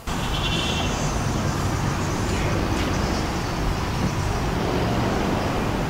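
Steady outdoor traffic noise, a constant rumble of road vehicles that starts and stops suddenly.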